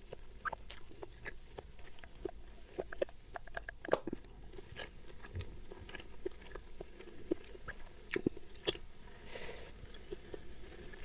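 Close-miked chewing of a mouthful of crispy fried chicken, with many small irregular crunches and mouth clicks.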